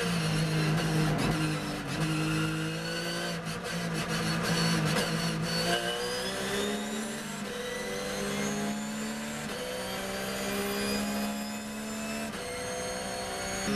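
Porsche GT3 R race car's flat-six engine heard from inside the cockpit, holding steady revs at first. Then it accelerates hard, revs climbing through the gears with quick upshifts about nine and a half and twelve seconds in.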